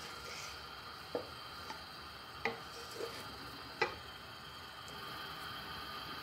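Wooden spatula stirring in a granite-coated nonstick frying pan, knocking against the pan about five times between one and four seconds in, over a steady faint hiss.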